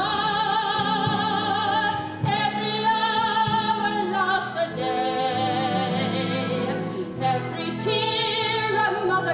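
A woman singing a slow ballad in an operatic style, with wide vibrato on long held notes, over instrumental accompaniment.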